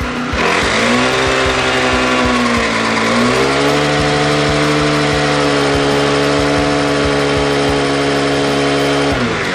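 Mini Mamba 40cc mini dirt bike's small two-stroke engine revving: the pitch climbs, eases off a little about two seconds in, climbs again and holds at high revs, then drops back near the end.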